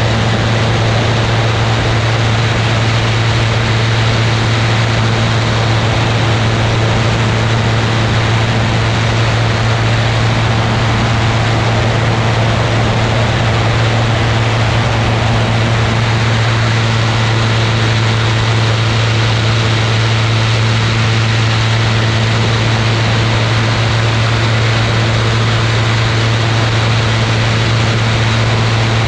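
Ultralight aircraft's engine and propeller running at a steady drone, a low hum over a constant rushing hiss, with no change in pitch or level.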